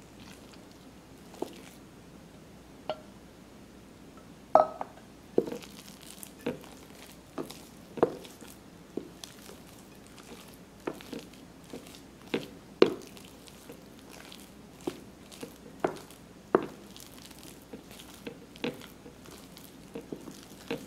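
Wooden spoon stirring and folding mashed potatoes in a glass bowl: irregular knocks and taps of the spoon against the bowl, about one a second, with soft squishing of the potato. A brief ringing clink about four and a half seconds in.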